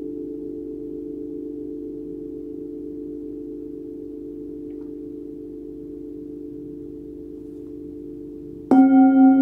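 Several hand-forged Tibetan singing bowls ring on together in a low, wavering hum that slowly fades. Near the end a bowl is struck, and a much louder, clear ring starts sharply.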